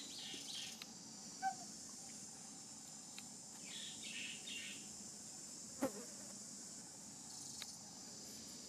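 Steady high-pitched insect chorus, with two brief sharp clicks, one about a second and a half in and a louder one near six seconds.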